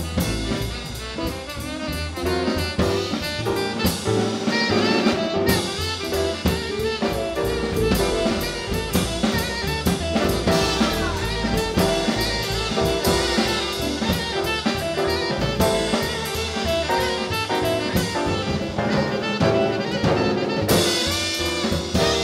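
Live jazz combo: a tenor saxophone playing a solo line over a busy drum kit with cymbals and an upright bass.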